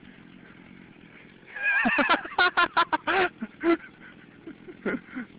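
A person's voice in a rapid run of short, high-pitched laughing or whooping cries starting about a second and a half in, with one more short cry near the end.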